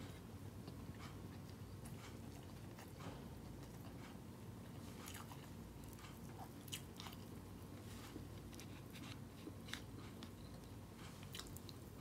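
Faint sounds of a person chewing grilled shawaya chicken and rice eaten by hand: scattered soft clicks and smacks over a low steady hum.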